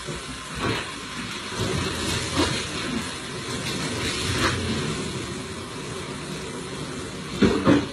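Water splashing and running while kitchen cupboards are washed down, with a few knocks of a plastic basin against the shelves and a louder clatter near the end.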